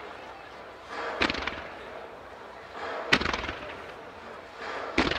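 Fireworks shells bursting overhead: a boom about a second in, a sharper bang about three seconds in, then a quick run of reports beginning near the end.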